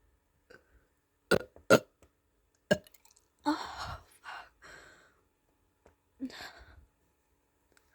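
A person burping: three short, sharp pops in the first three seconds, then longer rasping burps from about three and a half seconds in, and one more near the end. The owner wonders whether these burps are abnormal.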